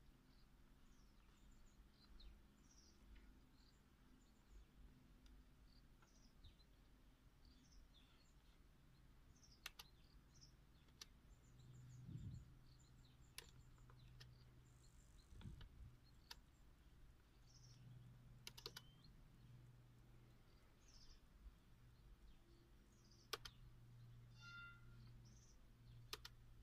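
Near silence with a faint steady low hum, a handful of sharp clicks from a laptop's keys and touchpad buttons, and scattered faint high chirps.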